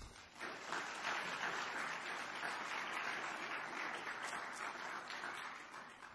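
Audience applauding, building over about the first second, then holding steady and dying away near the end.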